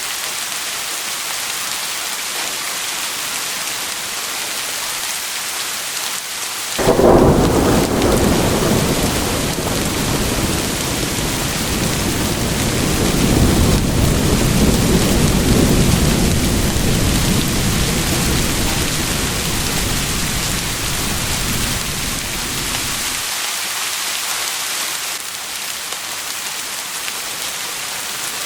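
Steady rain hissing, with a long roll of thunder that breaks in suddenly about seven seconds in, swells again midway, and cuts off sharply some sixteen seconds later.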